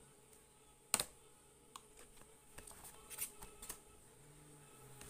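Faint taps and clicks of a cardboard box and its plastic insert tray being handled and set down, the loudest a sharp double click about a second in, followed by a few lighter clicks.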